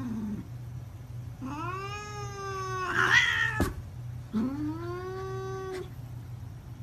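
Domestic cat giving two long meows, each rising in pitch then held for over a second, about three seconds apart. The first ends in a short rough burst, followed by a sharp click.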